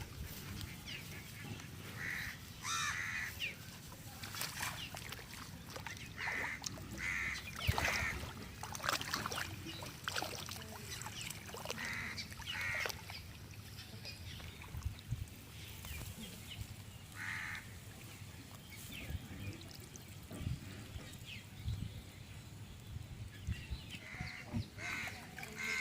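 Bird calls, short and repeated every few seconds, with scattered small knocks and clicks.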